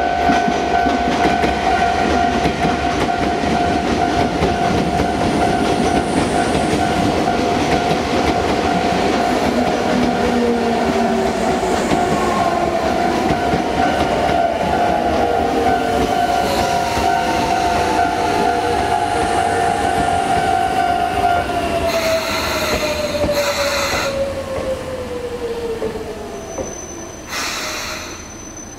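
Sotetsu 8000 series electric train braking into a station: a steady whine from its inverter-driven traction motors over the rumble of the wheels. About three-quarters of the way through, the whine glides down in pitch and the sound fades as the train slows to a stop, with short bursts of hiss near the end.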